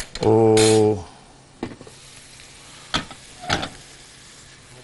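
Three light clinks of metal cookware and utensils spread across a few seconds, over a faint steady sizzle of food cooking in a pan.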